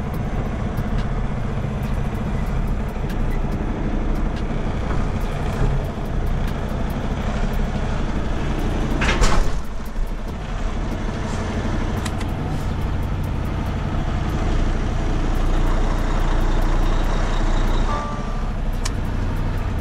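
Semi truck's diesel engine running steadily, heard inside the cab as the truck creeps across a dirt lot. A short, loud burst of noise comes about halfway through.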